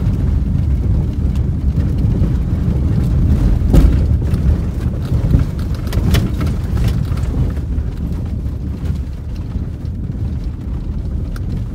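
Subaru Outback on BFGoodrich all-terrain tyres driving a rough dirt road at about 25–30 mph: a steady low road-and-tyre rumble with scattered sharp knocks as the car hits stones and ruts, the loudest about four seconds in.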